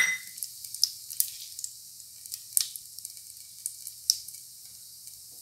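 A tadka of mustard seeds, cumin and curry leaves frying in hot oil and ghee in a pressure cooker, with freshly added peanuts and cashews: a soft hiss with scattered crackles and pops that dies down over the seconds. A sharp tap comes at the very start.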